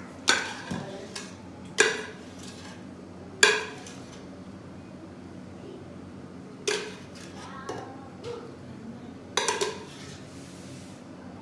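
Large stainless-steel cooking pot and spoon clanking as potato salad is knocked and scraped out of the pot into a serving bowl: a series of sharp metallic clangs, each with a short ring, spaced irregularly, the loudest about three and a half seconds in.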